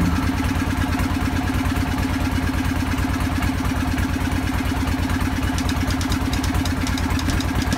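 Boat engine running steadily with a fast, even chug.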